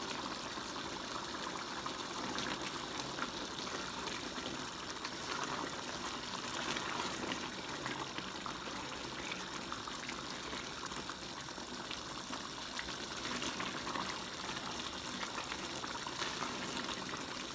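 A large aluminium pot of leafy greens in broth boiling steadily on a gas burner, a continuous bubbling with small scattered pops, as a plastic spoon stirs through it.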